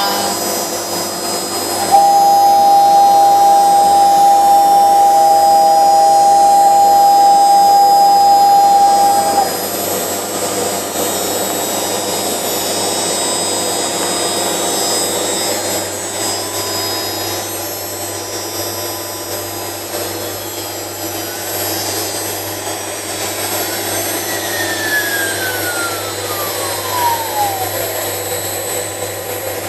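Home-built CNC router running with its dust extractor: a steady rushing drone, with a loud steady whine from about two seconds in to nine seconds, and a whine that falls in pitch near the end.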